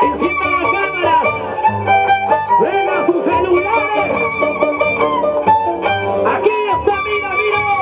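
Tipaki tipaki dance music: a violin plays a melody with slides and held notes over a steady pattern of plucked low string notes.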